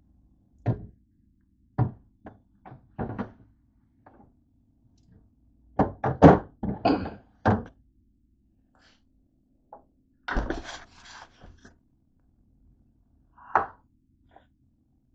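Knocks and clunks of bottles and containers being moved about on refrigerator shelves, in short clusters, loudest about six seconds in. About ten seconds in comes a heavier thump with a short rattle as the refrigerator door shuts.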